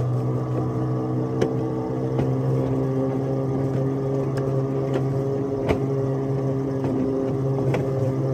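A 7 1/2 inch gauge ride-on locomotive running along the track: a steady, even hum with a buzz, which the rider puts down to the locomotive resonating in the phone holder. Sharp clicks every second or so as the wheels go over rail joints.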